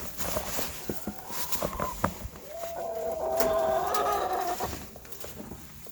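A chicken giving a drawn-out call of about two seconds, after a shorter call, over scattered clicks and knocks of handling and movement.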